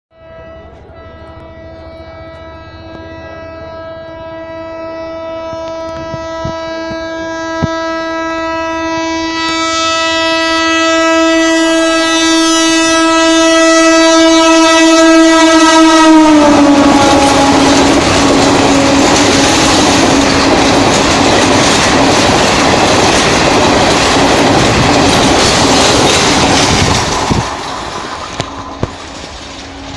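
Indian Railways train horn held in one long continuous blast as the train approaches at speed, growing steadily louder, its pitch dropping sharply about halfway through as the train passes. Then the loud rushing noise and clickety-clack of the coaches going by, which falls away near the end while the lower horn tone lingers.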